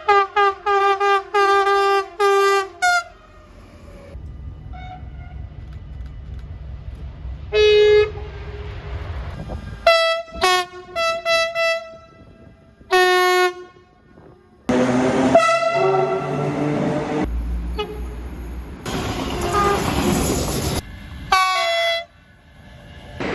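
Train horns sounding in a string of clips. A quick run of about seven short toots comes first, then a low train rumble. Further single blasts and bursts of short toots follow, one of them over the noise of a passing train about fifteen seconds in.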